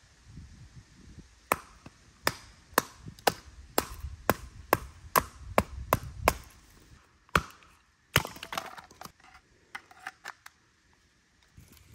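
Kindling being split by batoning a knife through wood: a wooden baton knocks sharply on the knife spine about twice a second, a dozen strikes in a steady run, then a few scattered knocks as the last pieces split off.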